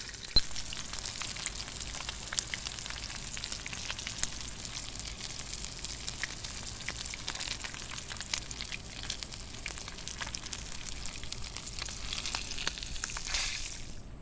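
Potato-chip-crusted mangrove snapper fillets shallow-frying in hot oil in a steel wok, sizzling and crackling steadily. A sharp click sounds about half a second in.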